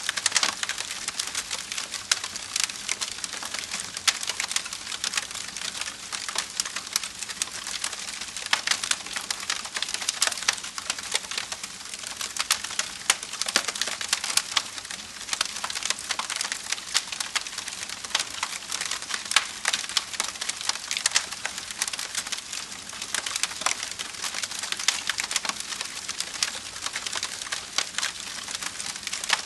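Wood fire crackling: a steady stream of dense pops and snaps, with sharper, louder snaps scattered throughout.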